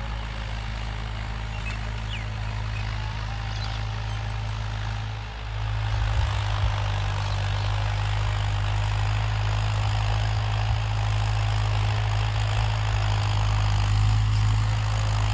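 Mahindra 575 tractor's four-cylinder diesel engine running steadily under load as it drives a rotary tiller (rotavator) through the soil. The sound gets louder about five and a half seconds in.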